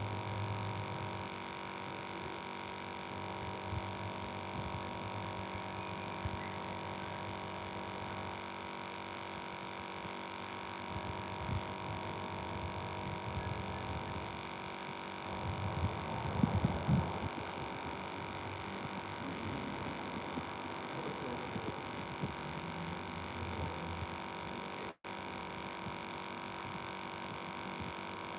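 A steady hum made of several held tones, with a brief louder burst of irregular noise about sixteen seconds in.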